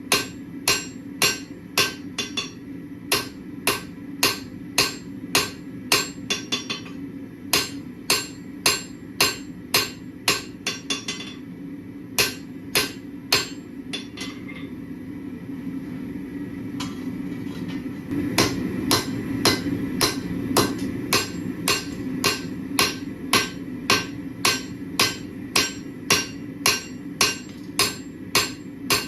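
Hand hammer striking hot steel on an anvil, forging out a kitchen knife blade, in steady ringing blows about two a second. The blows thin out and stop for a few seconds a little past the middle, then resume at the same pace.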